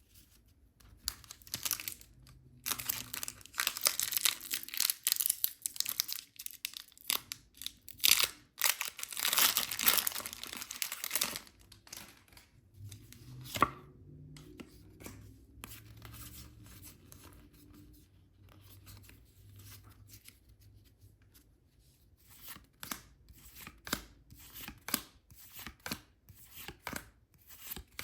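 Packaging being torn open and rustled for several seconds, followed by a series of light clicks and taps as the contents are handled.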